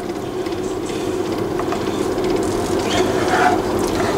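Steady mechanical hum, like a running kitchen fan or motor, with a few light clicks of cookware about three seconds in.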